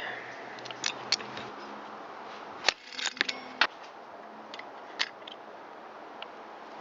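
Scattered light clicks and taps of hand tools and small parts on a chainsaw being taken apart, as its chain guard is removed. A short cluster of sharper clicks comes about halfway through, and another sharp click near the end.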